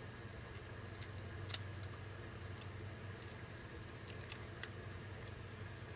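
Faint small clicks and taps of thin plastic filter sheets being handled and set into the plastic housing of a BMW E30 on-board computer, a few of them sharper, over a low steady hum.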